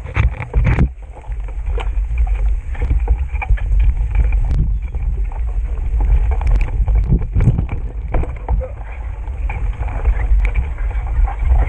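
Wind buffeting the camera microphone in a deep, gusty rumble while a bicycle rattles and knocks over a rough trail, with many short clatters throughout.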